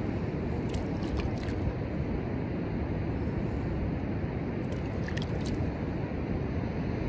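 Steady rumble of wind on the microphone and surf. Over it come a few faint wet crackles from slurry of wet sand dripping off a hand onto a sand tower, about a second in and again around five seconds in.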